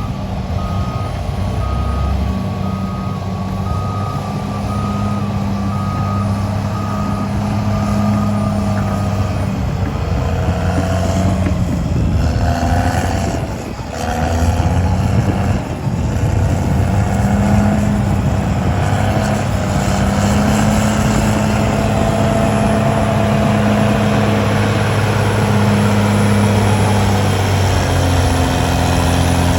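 Heavy diesel earthmoving machinery running under load, with a reversing alarm beeping steadily through roughly the first third, then stopping as the engines work on.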